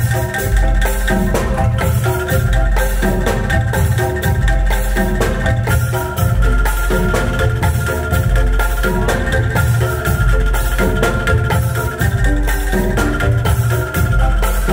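Bamboo percussion ensemble playing: rapid struck notes from bamboo tube instruments over a steady pulsing low drum beat, with drums and cymbal.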